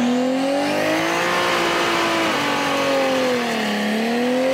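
Toyota Supra's engine held at high revs during a burnout, its pitch wandering up and down as the throttle is worked, over the noise of the spinning rear tyres.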